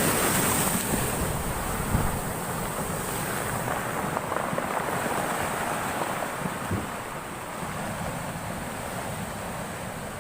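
Heavy storm surf breaking on the shore, a loud rush of water that is strongest at first and slowly dies away, with wind buffeting the microphone.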